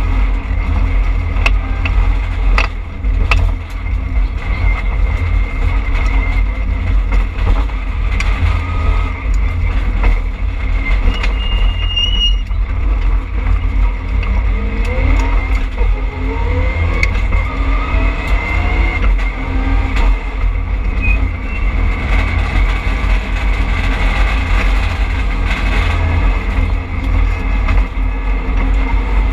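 Rally car at speed heard from inside its stripped, roll-caged cabin: a heavy, constant engine and road rumble. The engine note climbs in pitch as it accelerates around the middle, and a few sharp knocks come in the first few seconds.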